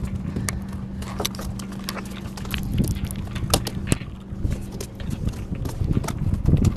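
Conventional fishing reel being cranked hard to bring in a hooked fish, its handle and gears giving irregular clicks and rattles over the steady low hum of a boat's engine.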